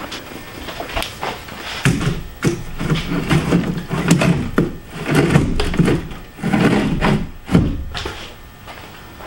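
Knocks and clatter of a chainsaw being set into wooden bar brackets on a wooden carryall: a run of uneven thunks and rattles over several seconds, then it settles.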